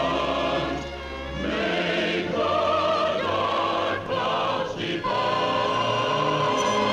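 Orchestral film score with a choir singing long, sustained notes, in the lush 1940s cartoon title-music style.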